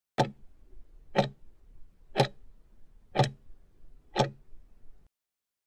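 Countdown timer's ticking sound effect: five sharp ticks, one a second, counting down the last five seconds before time runs out.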